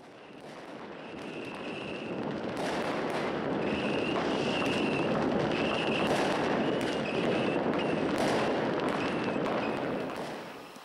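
Fireworks going off: a dense crackling full of sharp bangs, with short high whistles over it. It swells in over the first few seconds and fades away about ten seconds in.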